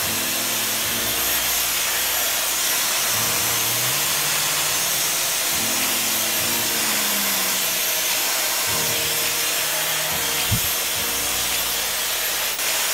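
Hand-held hair dryer blowing steadily, a constant airy rush with a faint high whine, as it dries and styles short hair.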